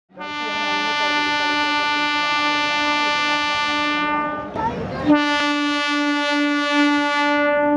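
Train horn sounding two long steady blasts on one pitch, with a short rush of noise between them.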